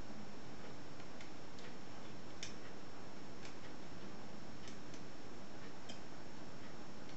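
Lever lock picks working inside a 5-lever mortice lock: small, irregular metal clicks and ticks as the levers are lifted and tensioned, the clearest about two and a half seconds in, over steady background hiss.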